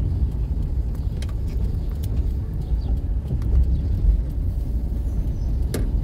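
Car driving slowly, its engine and tyres making a steady low rumble heard from inside the cabin.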